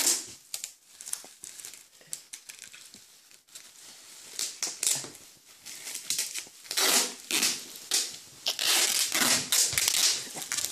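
Brown packing tape pulled off the roll in noisy ripping strips and wound around an ankle, quieter in the first few seconds and then several loud pulls in a row.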